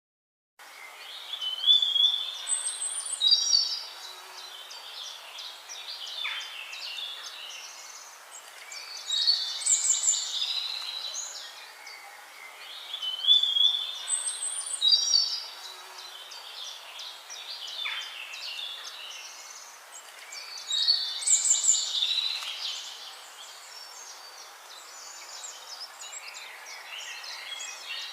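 A songbird singing loud, varied phrases of quick notes, repeated every several seconds, with softer chirps from other birds between them.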